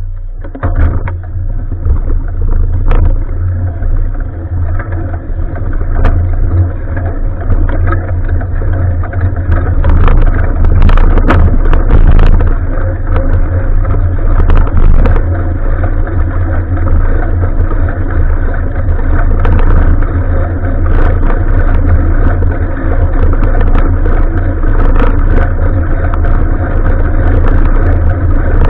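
Wind rushing over an action camera's microphone on a moving bicycle, a steady heavy rumble, with scattered clicks and knocks from the bike.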